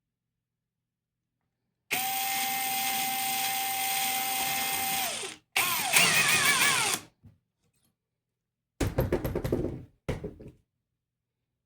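Cordless drill with a 3 mm bit drilling through a bamboo cutting board, running steadily for about three seconds and spinning down, then a second shorter run with its pitch wavering. Near the end come about two seconds of rattling knocks.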